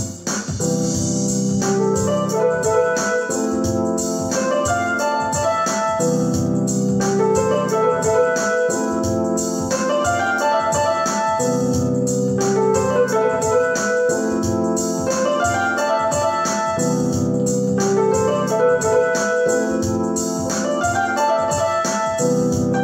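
Yamaha PSR-E403 electronic keyboard playing a major-seventh chord progression that moves between CMaj7 and FMaj7. Held chords change every couple of seconds, with broken-chord notes played above them.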